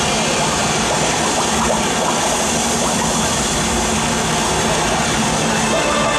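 Steady rushing, water-like sound effect, with a few faint bubbling pitch glides about two seconds in.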